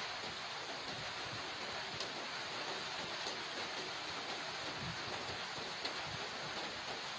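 Steady rain falling on wet paving and tree leaves, with scattered faint drips.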